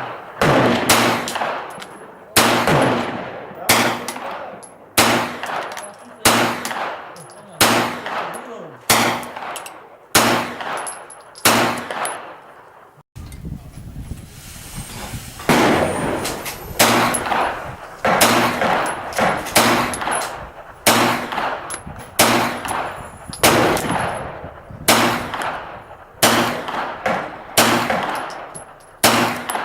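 Hi-Point 9mm carbine firing a steady string of single shots, about one a second, each shot followed by a trailing echo. The string breaks off about 13 seconds in and starts again at the same pace.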